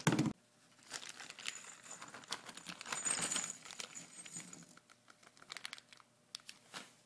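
A short thump at the start, then a plastic bag of bookcase hardware being handled: irregular crinkling with small metal and plastic parts clicking, busiest in the middle and thinning to scattered clicks near the end.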